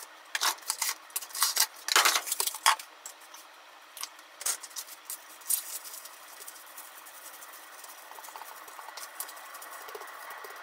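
Plastic cling film crinkling and rustling as hands squeeze ground beef wrapped in it into a block. The rustles come thick in the first three seconds, then as scattered short crinkles.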